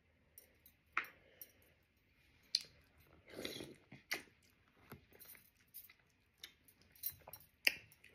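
Close-up eating sounds while chewing steamed oysters: irregular sharp clicks and wet mouth smacks, with a longer noisy chew about three and a half seconds in.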